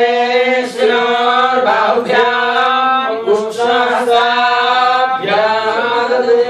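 Devotional mantra chanting in long, held notes on a nearly steady pitch, with brief pauses between phrases.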